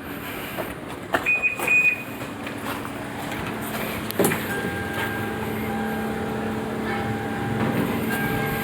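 A short beep and a few clicks, then the Toyota Camry ACV40's 2.4-litre four-cylinder engine is push-started about four seconds in and settles into a steady idle.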